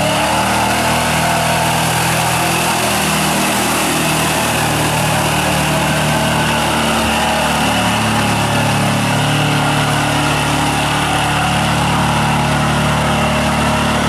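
Lifted Mercury Mountaineer mud truck's engine running hard under load as its big paddle tires churn through deep mud, the revs held fairly steady with a couple of small shifts in pitch.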